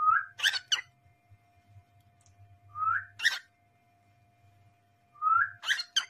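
Cockatiel repeating a short whistled phrase three times, about every two and a half seconds: a brief rising whistle followed by one or two sharp chirps.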